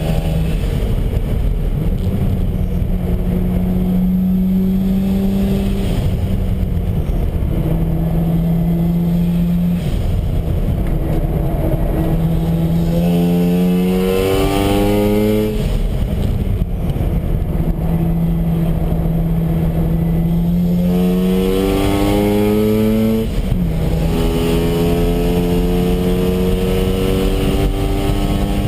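Mazda RX-7 FD3S's twin-rotor rotary engine running hard at speed, heard from inside the car, with wind and road noise. Twice, about halfway through and again near the end, the engine revs climb steadily and then drop sharply on an upshift.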